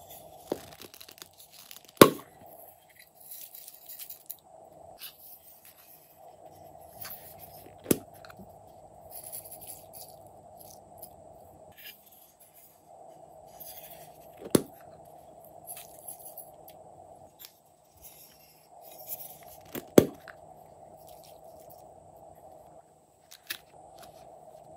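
Hollow plastic eggs snapped and tapped open with sharp clicks, five in all, as sequins and confetti are shaken out onto slime with light crackly rustling in between.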